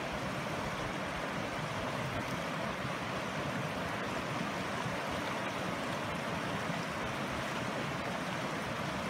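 Shallow mountain creek running steadily over rocks and stones, an even hiss of water.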